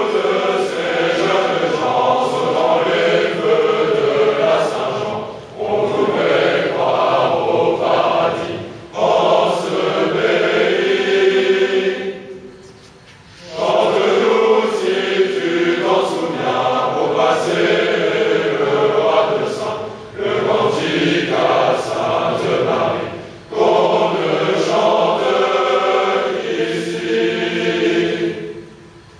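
A large group of students singing a traditional French song together as a choir, in long phrases broken by short pauses.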